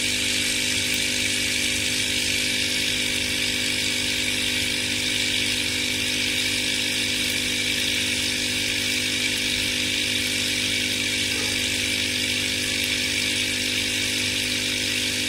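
Steady, even buzzing hum of a small electric motor.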